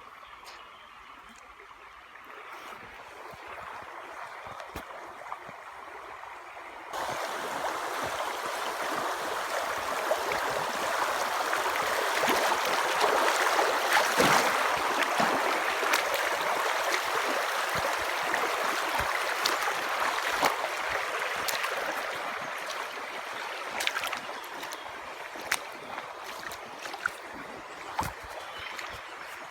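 Stream water rushing and gurgling, stepping up suddenly about a quarter of the way in, swelling to its loudest midway and easing off again, with scattered light clicks near the end.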